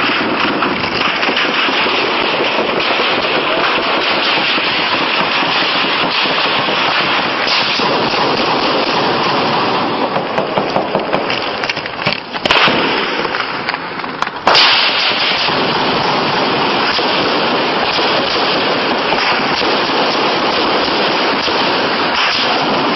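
Dense, continuous crackle of gunfire in a prolonged firefight, with many shots running together. The sound wavers between about ten and fourteen seconds in, then there is a single sudden bang.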